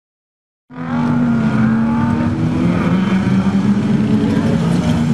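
Autocross race cars' engines running hard on a loose dirt track, cutting in abruptly about a second in, with engine notes rising and falling as the cars accelerate and slide.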